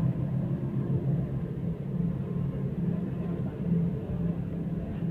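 Steady low engine and road drone of a moving bus, heard from inside the passenger cabin.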